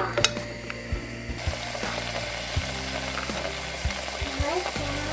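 Thick hawthorn and sugar jam bubbling and sizzling in an aluminium saucepan on a gas burner, the sizzle setting in about a second and a half in, with occasional clicks of a silicone spatula against the pot.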